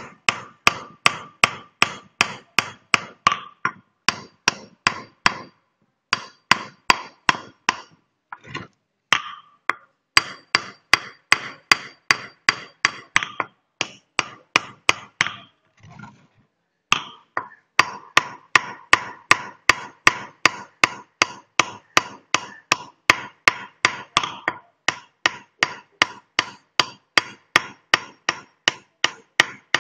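Hammer striking a metal chisel against a shil grinding stone, about three sharp taps a second, each with a short ring, with a few brief pauses. The stone's face is being pecked rough again so that it grips and grinds.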